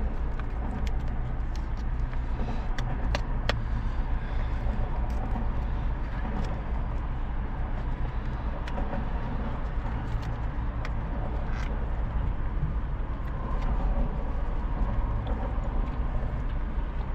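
Steady low rumble of an idling car, with scattered sharp clicks and crackles of a cardboard dessert box being pried open.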